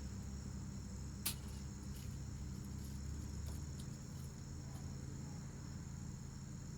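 Steady background hum with a constant high-pitched trill above it, and one sharp click about a second in.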